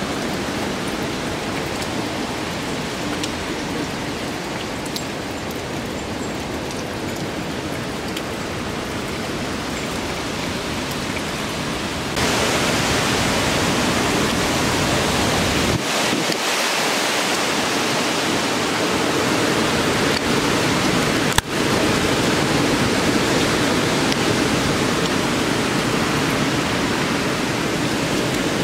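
Hurricane wind and heavy rain: a steady rushing noise that turns louder and brighter about twelve seconds in, with a single sharp click about twenty-one seconds in.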